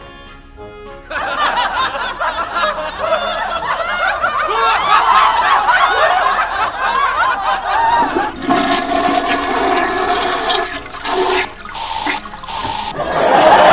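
Toilet flushing from about a second in, water swirling and gurgling for several seconds. Near the end come three short hisses of an aerosol air-freshener spray.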